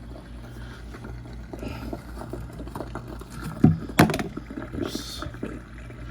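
Dishwasher drain pump running with a steady hum as water gurgles out of the tub, the drain cycle started by pressing cancel to clear an E1 F9 error. Two sharp knocks come about three and a half and four seconds in.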